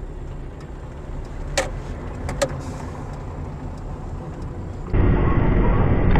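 Car engine and road noise heard from inside the cabin as the car creeps forward, with a few sharp clicks about one and a half and two and a half seconds in. Near the end it cuts to a louder, rougher rumble of another car driving.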